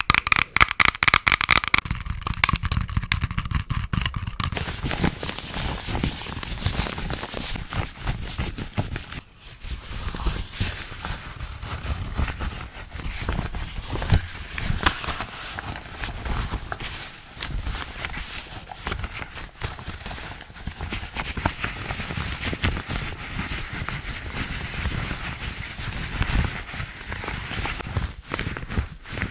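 A quick run of close-microphone ASMR trigger sounds made with pink objects. Near the start come rapid tapping and clicking on rhinestone-covered sunglasses, then rubbing, stretching and crinkling of a rubber glove and padded mitts, with many small scrapes and clicks.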